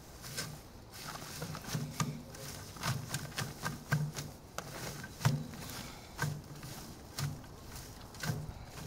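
Dry amaranth seed heads being rubbed and pressed by hand against a wire-mesh screen to thresh out the seed. The dry stalks and leaves rustle and crackle irregularly, with soft thumps as the hands press down.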